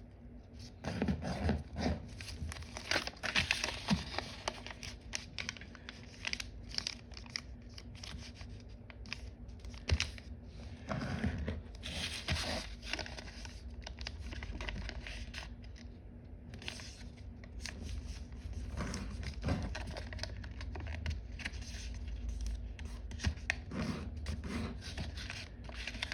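Sheet of paper being handled and folded: irregular crinkling and rustling as creases are pressed and layers worked into the model.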